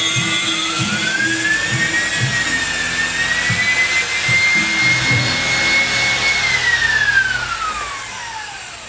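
A power tool's motor whining as it speeds up, runs steadily, then winds down over the last few seconds after it is let off. Music plays underneath.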